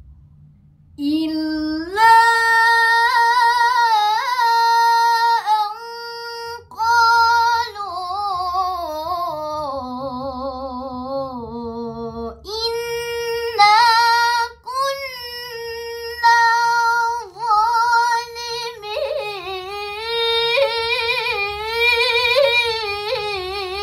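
A girl's voice reciting the Qur'an in a melodic tilawah style: long held notes with wavering ornaments on each phrase, and short breaths between phrases. The line sinks low around the middle, then climbs back up.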